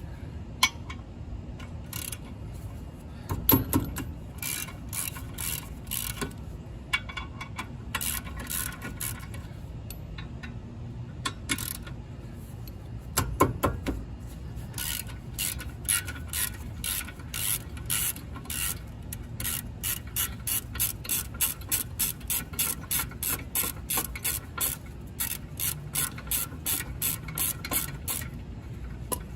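Hand ratchet with a 17mm socket clicking in runs as the caliper bracket bolts are turned out, settling into a steady click about three times a second near the end. Two heavier knocks come a few seconds in and about halfway.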